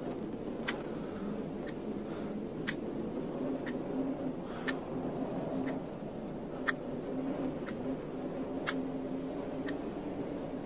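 Clock-like ticking, one tick about every second, alternating louder and softer, over a low steady hum.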